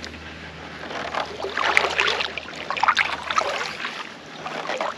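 Kayak paddle strokes: the scooped blade dipping into and pulling through the water with irregular splashing and dripping, starting about a second in.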